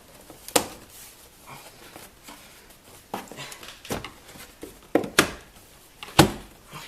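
A series of sharp plastic knocks and clicks, about six spread over several seconds, from handling the glove box and dashboard trim panels of a car interior.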